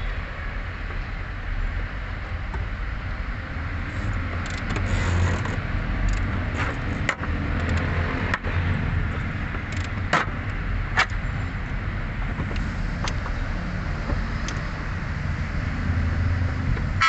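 Steady low rumble of background traffic, with a handful of sharp, separate clicks and knocks from hand work on the car's parts, mostly in the middle of the stretch.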